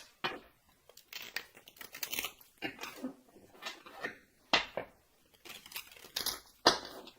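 Tarot cards being handled and laid down: papery rustling and shuffling with irregular sharp card snaps, the two loudest about four and a half and six and a half seconds in.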